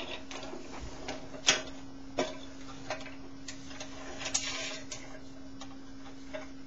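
Irregular clicks and knocks, the loudest about one and a half seconds in, with a short rattle near the middle, over a steady low hum.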